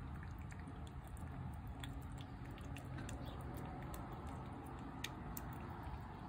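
A cat chewing wet food from a plate, with irregular small wet clicks and smacks of its mouth.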